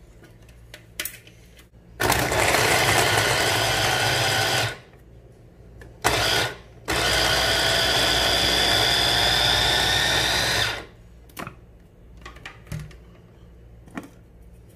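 Electric mini food chopper running in three pulses, about two and a half seconds, a short blip, then about four seconds, chopping onion, ginger and fresh coriander; its whine rises slightly during the last run. A few clicks of the motor unit being handled come before and after.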